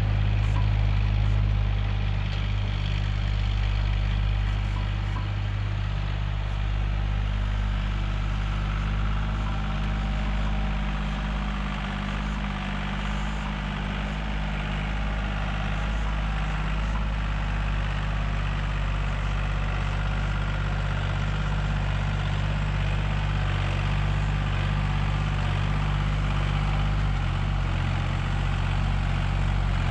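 Tractor's diesel engine running steadily with a low drone while pulling a laser land leveler across the field.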